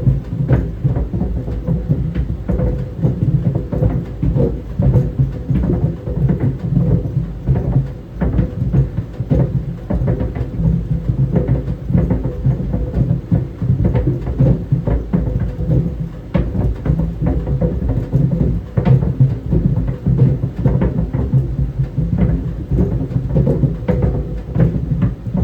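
Tennis balls tumbling in a running clothes dryer: dense, irregular thumping against the drum over the dryer's steady low rumble, with a faint steady hum.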